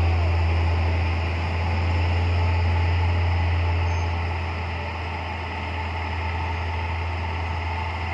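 Vehicle engines idling: a steady low drone over road hiss that eases a little about halfway through.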